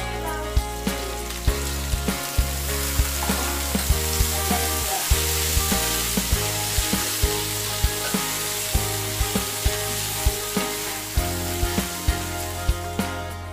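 Chicken, onion and capsicum sizzling in hot oil in a frying pan, being stirred and turned with a wooden spatula.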